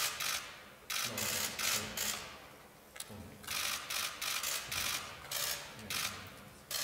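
Press photographers' camera shutters firing in rapid overlapping bursts of clicks, several bursts a second or so apart.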